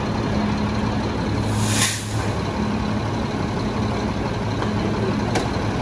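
Heavy diesel trucks running at idle with a steady low hum, with a short sharp hiss of released air from an air brake about two seconds in.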